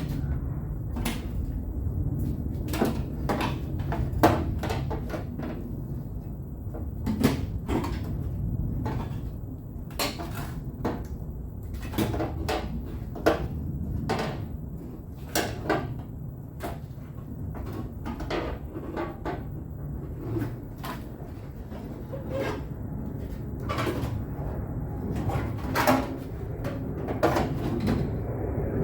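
Irregular knocks and clatters of a steel replacement car quarter panel being handled and set against the body, over a steady low hum.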